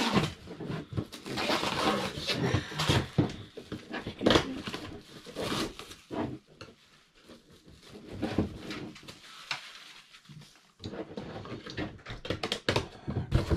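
Thin clear plastic wrapper crinkling as it is peeled off a boxed Funko Pop vinyl figure, in irregular crackles, busiest in the first half, quieter for a few seconds, then rustling again near the end.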